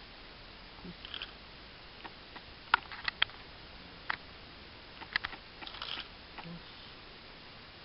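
A scatter of sharp clicks and ticks over a faint steady hiss, a few coming in quick pairs, loudest a little under 3 seconds in.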